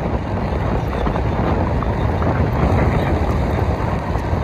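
Loud, steady rush of wind buffeting the microphone while travelling at road speed, with a heavy low rumble.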